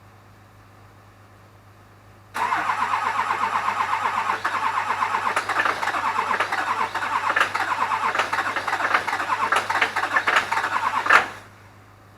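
Starter cranking a cold LB7 Duramax 6.6 L V8 diesel at -2°F: an even, rapid pulsing begins about two seconds in, runs for about nine seconds, then stops suddenly after one loud peak, with no engine left running. The owner suspects one or two bad glow plugs.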